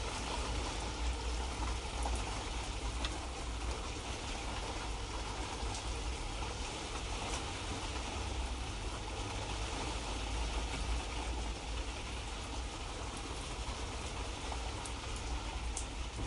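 Light rain falling: a steady, even hiss with scattered faint drop ticks, over a low steady rumble.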